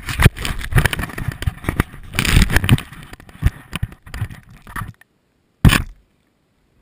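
Handling noise from a camera inside a volleyball: hands rubbing and bumping the ball's shell, making dense crackling scrapes and muffled knocks. Near the end one sharp knock as the ball is sent up into the air, then it goes quiet.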